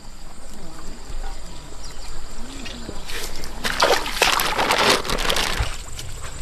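Water trickling and splashing, with a louder burst of splashing lasting about two seconds past the middle.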